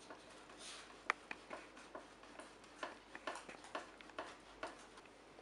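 Peeled boiled egg being grated on the fine side of a metal box grater standing on a plate: faint scraping with light, irregular clicks.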